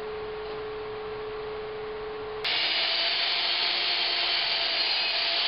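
Electric miter saw switched on with a click about two and a half seconds in, its motor and blade then running at a steady high whine as the blade comes down on a small wooden board. Before that only a low steady hum.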